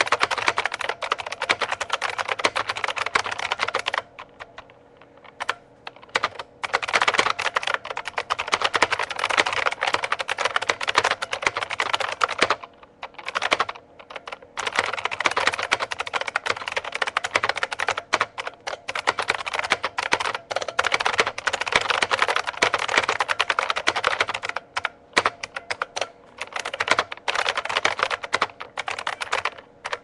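Fast typing on an IBM Model M keyboard, its buckling-spring keys making a loud, clicky clatter. There are two pauses of a second or two, one near the start and one before the middle, and a few shorter breaks later on.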